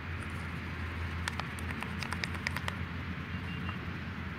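Slime being mixed in a plastic bowl as borax activator is poured in from a plastic cup and stirred with a plastic spoon: a quick run of small clicks and taps about a second in, lasting a little over a second, over a steady low background noise.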